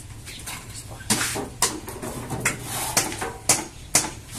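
A run of sharp knocks, about two a second from a second in, with scraping between them: hand tools striking and scraping during concrete work on a sink.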